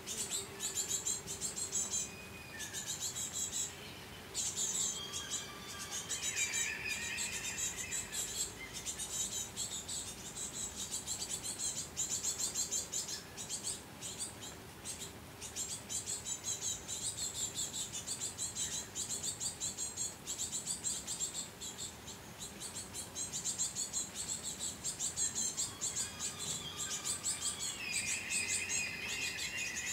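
Birds chirping in short whistled phrases now and then, more of them near the end, over a continuous fast, high-pitched insect trill.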